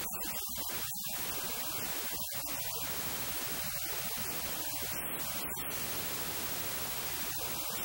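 Steady, even hiss of static noise with no other distinct sound.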